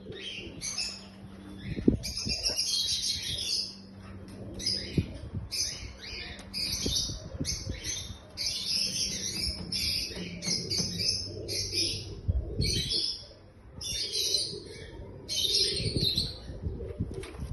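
Birds chirping and twittering in dense high-pitched runs, almost without pause, with a few soft low thumps mixed in.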